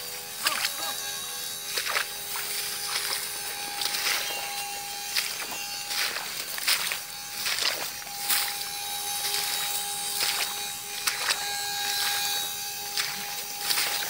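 Rice stalks rustling and brushing in irregular crackling strokes as someone pushes through a ripening paddy field, over a steady buzzing drone.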